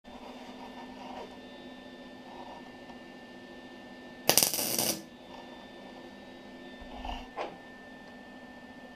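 A MIG welder's arc crackling in one short tack weld of under a second, a little after four seconds in, on a steel camshaft. A steady electrical hum sits underneath, with a couple of light knocks from handling the parts near the end.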